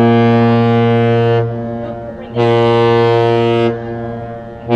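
Deep horn blasts of the Great Lakes captain's salute, one long and two short: the long blast ends about a second and a half in, a short blast follows, and the second short blast starts near the end.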